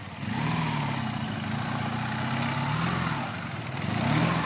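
BMW GS Adventure motorcycle's boxer-twin engine revving, its pitch repeatedly rising and falling, getting louder just after the start and loudest near the end.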